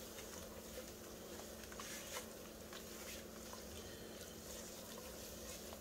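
Faint stirring in a skillet: a silicone spatula pushing sliced onions through a thickening arrowroot-and-turkey-fat roux, with a few soft scrapes and squishes over a steady low hum.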